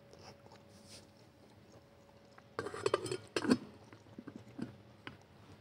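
Tableware clinking and clattering for about a second, around three seconds in, followed by a few lighter clicks, over a faint steady hum.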